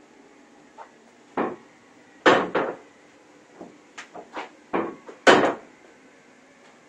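A handful of irregular knocks and clunks, about seven over four seconds, the loudest two about two and five seconds in.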